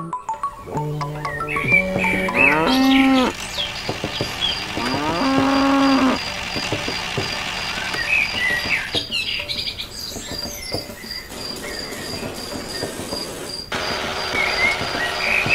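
A cow mooing twice, two drawn-out calls a couple of seconds apart, over faint bird chirps and a steady high insect-like tone.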